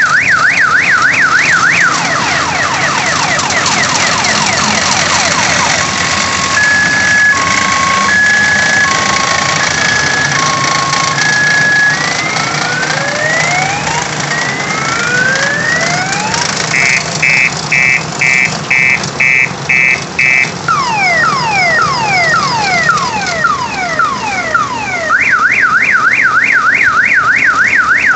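An electronic multi-tone siren of the car-alarm kind cycling through its patterns: a fast warble, then falling sweeps, a two-tone beep, rising whoops, rapid chirps, more falling sweeps and the fast warble again near the end. Beneath it runs the steady whir of the model helicopter's small motors and spinning fan blades.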